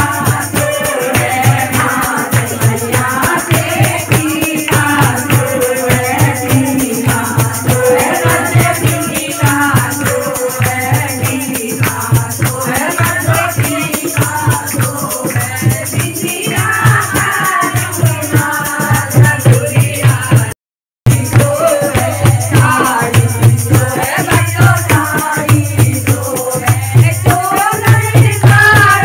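Group of women singing a devotional kirtan song, one voice through a microphone, over a steady dholak drum beat, handclaps and a rattling percussion keeping time. The sound drops out for a moment about two-thirds of the way through.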